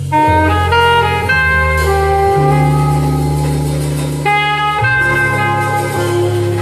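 Instrumental music played through a hi-fi system's GT Audio Works GTA3r loudspeakers with Sound Insight SI600 open-baffle subwoofers: a melody of short, clear notes over a deep, sustained bass line, heard loud in the listening room.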